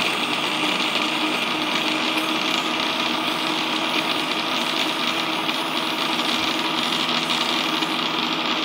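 Electric mixer grinder (mixie) running steadily at speed, its steel jar grinding sautéed shallots, tomato and chillies into a chutney paste.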